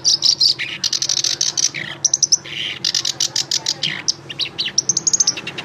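Songbird singing a fast, varied song of rapid sharp chirps and short trills, the notes coming in quick stuttering runs with brief gaps.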